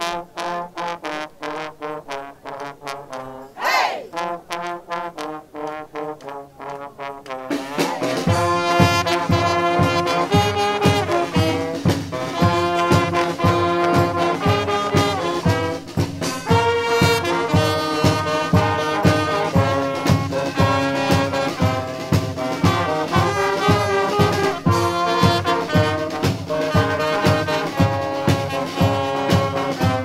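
Street brass band of trumpets, trombones and sousaphone playing. For the first several seconds only held horn notes sound, with a rising slide twice. About seven seconds in, the full band and drums come in louder, with a steady beat.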